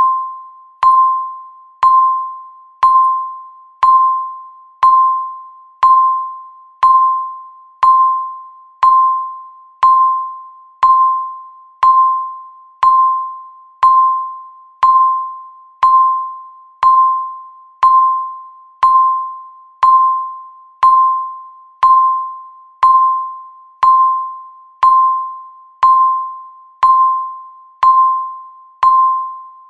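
Countdown timer's electronic tick sound, one short ringing tick each second, a clear tone that fades quickly before the next.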